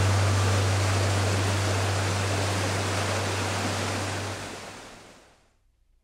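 Rushing water of a mountain stream, a steady dense hiss that fades out to near silence about five seconds in.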